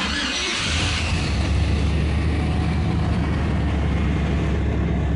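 Pickup truck engine starting right off and running at a steady idle. The idle is a little rough, which the owner puts down to a fuel system that needs cleaning out.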